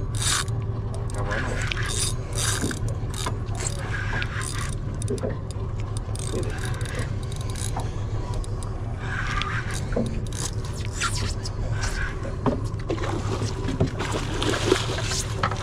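A boat's engine running steadily, with the scraping and clicking of a fishing reel being wound in as a hooked fish is brought up from deep water.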